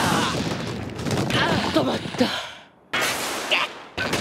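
Action sound effects of a body crashing into a wall: a heavy impact with crumbling, rattling debris and a short pained vocal grunt, fading about two and a half seconds in. A sudden hit comes near three seconds and another near four.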